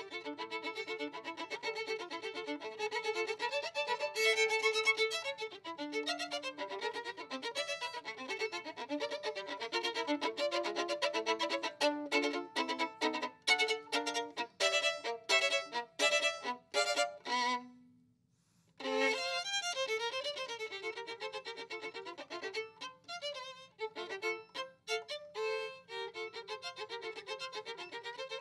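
Violin playing a fast, busy passage of quick notes, with a run of short, sharply separated strokes in the middle. The playing breaks off briefly about two-thirds of the way through, then resumes.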